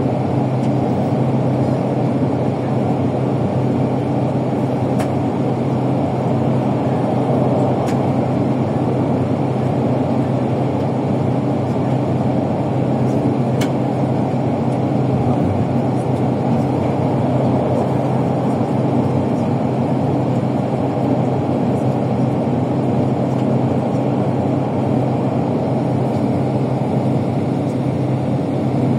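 ALSA coach under way: a steady low engine drone and road noise, heard from inside the cabin, with a few faint clicks.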